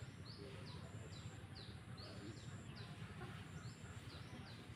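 Small bird chirping repeatedly in short falling notes, about two a second, with a thin high note recurring every second or so, over a faint steady low rumble.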